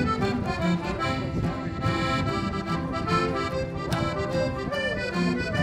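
Instrumental background music: sustained chords in steady, changing steps.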